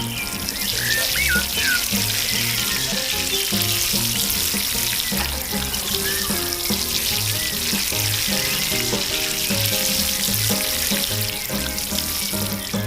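Background music with a steady bass beat, under a continuous hissing noise that starts and stops with the window.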